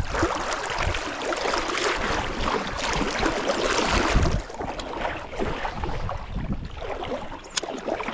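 Wind buffeting the microphone, a steady rushing noise that swells and eases in gusts, with a single sharp click near the end.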